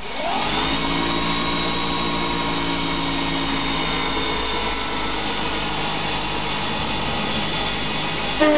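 Hercus PC200 CNC lathe spindle spinning up with a rising whine in the first second, then running steadily with the chuck whirring. Near the end a louder, steady tone sets in as the tool starts the facing cut across the corners of the 3/4 in hex steel bar.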